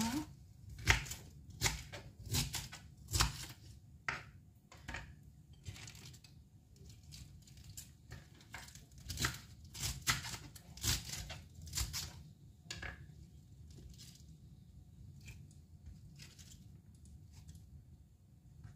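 Kitchen knife slicing through a cabbage on a cutting board: a string of crisp, irregular cuts that knock against the board, heaviest in the first dozen seconds and fainter near the end.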